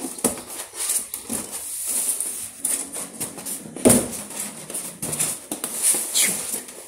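Polystyrene foam packing block being handled and slid around: rubbing and scraping with scattered light knocks, one louder thump about four seconds in, and a short foam squeak near the end.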